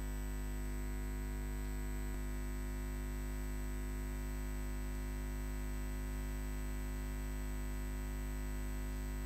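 A steady electronic drone of many held tones layered together, like a sustained synthesizer chord, unchanging in level. About two seconds in there is a faint click and one of the higher tones drops out.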